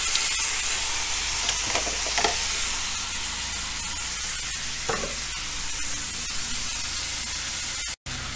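Pork chops sizzling steadily in hot olive oil in a frying pan, with a few faint clicks and spatters. The sound cuts out for an instant near the end.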